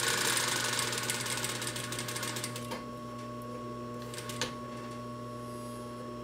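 Sewing machine stitching twist cord trim onto a pillow cover: a fast, even run of needle strokes for about three seconds that tapers off and stops. A steady low hum continues after, with a couple of light clicks.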